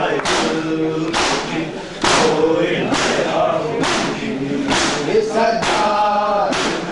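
A group of men chanting a noha in unison, with the sharp slaps of matam, hands striking bare chests together, on a steady beat a little under once a second.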